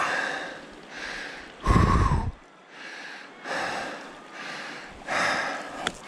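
A man breathing hard and panting, winded from heavy exertion, about one loud breath every second and a half. One breath about two seconds in is louder and deeper than the rest.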